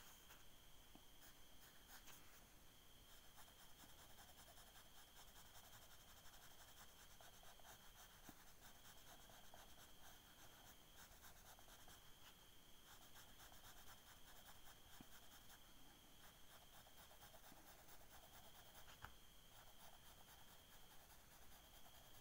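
Faint scratching of a pencil shading on paper: stretches of quick, short hatching strokes with brief pauses between them.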